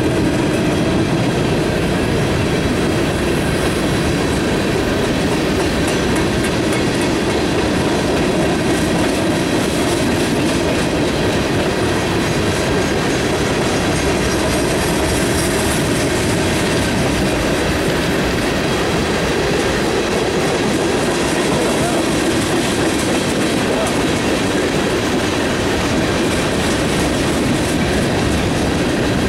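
Freight cars of a mixed freight train, covered hoppers and tank cars, rolling steadily past: a continuous rumble of steel wheels on rail with a stream of clicks as the wheels cross rail joints.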